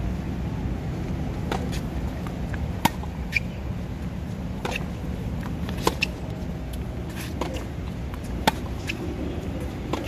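Tennis balls being struck by racquets and bouncing on a hard court during a practice rally: a series of sharp pops every second or two, over a steady low rumble.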